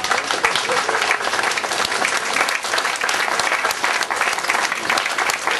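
An audience applauding, a dense, steady clatter of many hands clapping.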